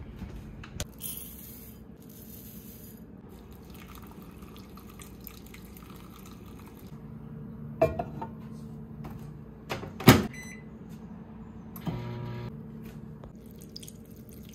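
Kitchen sounds of breakfast being made: a steady low hum under handling noise, with a few sharp clacks of a bowl and the microwave, the loudest about eight and ten seconds in.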